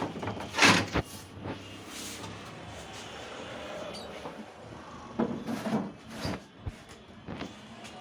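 Knocks and scraping from a CRT colour television's plastic cabinet being opened and handled. The loudest clunk comes less than a second in, with a cluster of smaller knocks about five to six seconds in.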